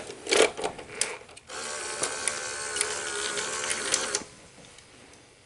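Betamax video deck's mechanism whirring steadily after a few clicks, cutting off suddenly about four seconds in.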